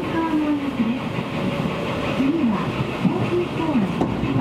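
Seibu Railway electric commuter train running, a steady noise of wheels on rails with no pause. A voice rises and falls over it.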